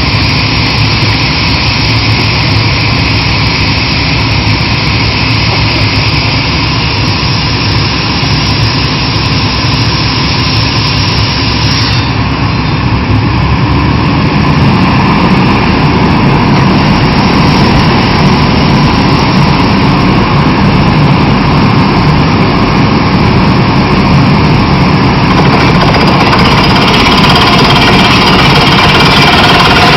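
Kaishan KW20 water-well drilling rig running, a loud steady machine noise that grows a little louder about halfway through.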